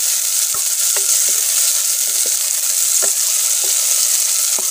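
Chopped onion, garlic, ginger and green chillies sizzling in hot ghee in an aluminium saucepan: a steady, loud hiss, the tadka frying. A wooden spoon stirring them knocks and scrapes against the pan every second or so.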